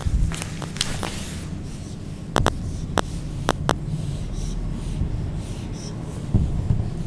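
Felt-tip marker drawing on a whiteboard: scratchy strokes and a handful of short sharp ticks of the tip against the board as lines are drawn, over a steady low room rumble.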